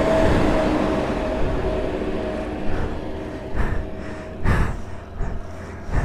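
Motorcycle engine running, its steady hum fading out about halfway through over a low rumble. Later come a couple of short bursts of rushing noise.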